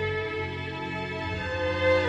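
Background music with long held notes in chords; the chord changes near the end.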